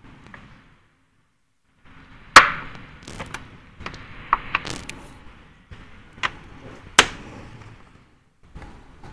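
Plastic air filter box lid of a Honda Step WGN being pressed down and its wire spring clips snapped shut: two sharp snaps, one about two and a half seconds in and one near seven seconds, among lighter plastic clicks and rubbing.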